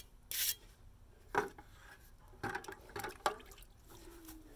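A hand trowel scrapes once briefly across wet concrete, then is dipped in a bucket of water: a few short knocks, splashes and drips as it is wetted.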